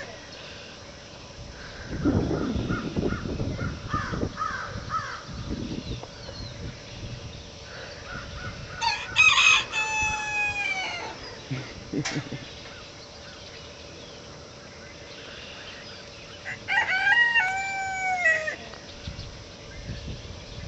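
A rooster crowing twice, each a long call falling in pitch: first about nine seconds in, then again near the end. A low scuffling noise runs through the first few seconds.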